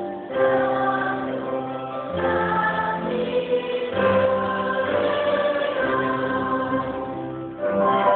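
Symphony orchestra and choir performing together: full held chords that change about every two seconds.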